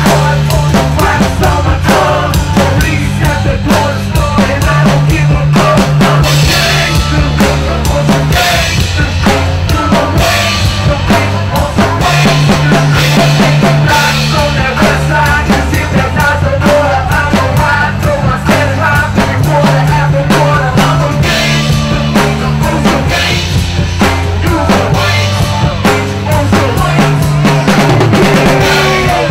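Loud band music: a drum kit played hard over a steady, repeating bass line.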